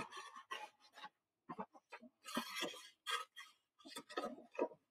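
Scissors cutting a long strip across a sheet of paper: a quiet, irregular run of short snips and paper crackle.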